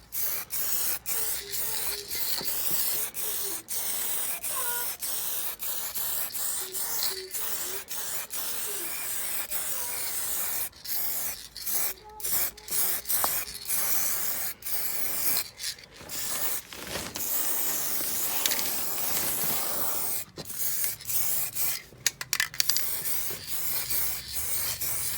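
Black spray paint hissing out in repeated bursts, with short breaks between passes, as galvanised brake parts are painted.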